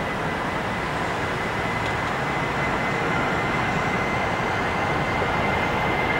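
Airbus A320's twin IAE V2500 turbofan engines at takeoff thrust during the takeoff roll: a steady rumble with a thin high whine, slowly growing louder as the jet draws nearer.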